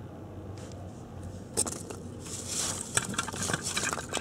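Foam packing peanuts being dug through in a cardboard box: a dry crackling rustle that starts about a second and a half in, with a few sharp clicks.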